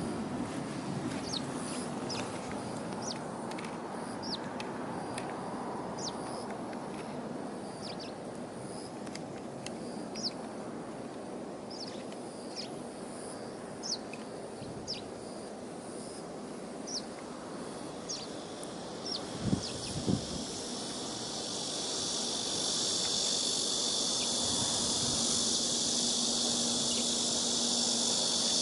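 Outdoor ambience of short, high chirps repeating about once a second over a steady hiss. About two-thirds in, a steady high insect buzz sets in and carries on, and two dull thumps come just after it starts.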